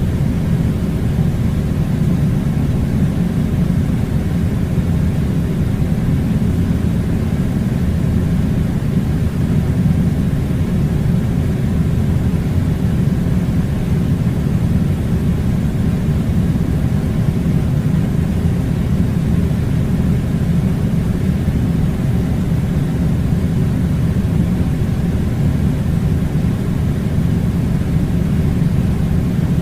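Air conditioning unit running: a steady, unchanging low rumble of blowing air.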